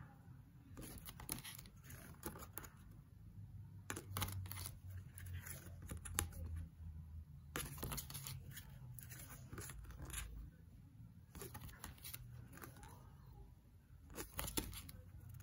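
Tarot cards being handled and slid off a deck one at a time: faint papery swishes and light clicks of card stock, scattered irregularly a dozen or so times.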